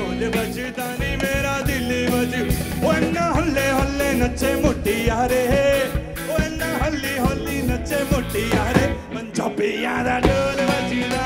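Live Sufi rock band playing: a male lead singer's vocal over drum kit with regular cymbal strokes, electric bass and tabla.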